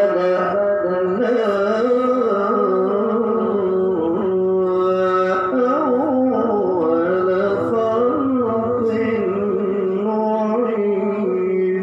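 A male qori chanting Quranic recitation in the melodic tilawah style: one long, unbroken melismatic phrase, the voice winding up and down in pitch.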